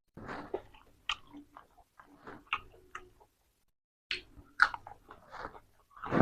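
A person biting and chewing crunchy raw vegetables with spicy pork salad: irregular crunches and wet mouth smacks, with a short pause a little past the middle.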